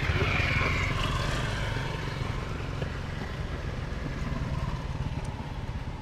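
Engine running steadily with a low hum, with a louder rushing noise in the first second or two that fades away.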